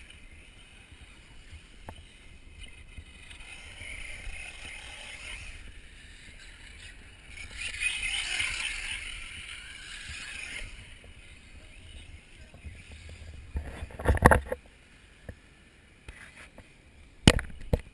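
1/8-scale off-road RC buggies running on a dirt track, one passing close by partway through with a louder rush of motor and tyres for about three seconds. Several loud sharp knocks come later, and one more near the end.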